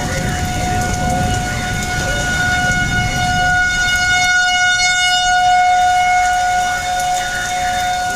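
Outdoor civil defense tornado siren sounding a steady, held tone that swells louder toward the middle and eases off again: the public alarm for a tornado warning.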